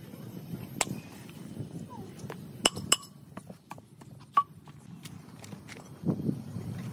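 A metal rod and hand tool scraping sand and broken mould out of a freshly cast truck brake drum, with several sharp metallic clinks as the tool strikes the drum's rim.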